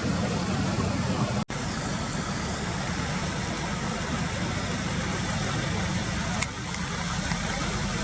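Steady low motor rumble with a hiss over it, briefly cut out about a second and a half in.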